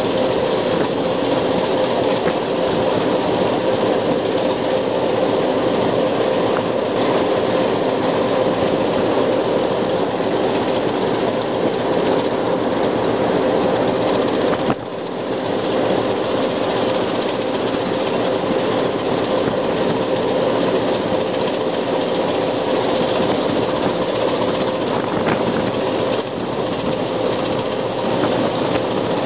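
Class 20 diesel locomotive (English Electric 8SVT engine) running under power on the move, a loud steady drone with a high whine that rises slightly near the end, over the noise of wheels on rail. Its level dips briefly about halfway through.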